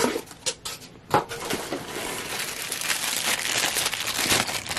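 Clear plastic packaging bag being handled and crumpled, with a continuous crackly crinkling from about a second in, after a few short clicks at the start.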